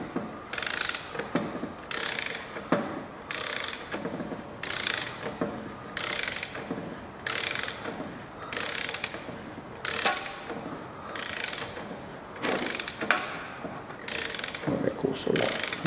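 Hand ratchet wrench worked in repeated strokes. Each stroke gives a short burst of ratcheting clicks, about one every second and a half.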